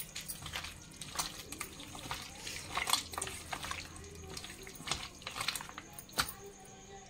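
Hand squishing and kneading chicken pieces in a wet masala marinade in a steel bowl: irregular wet squelches with small clicks.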